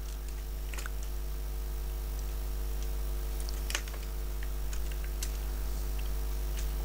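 Steady low hum with a few faint computer keyboard clicks.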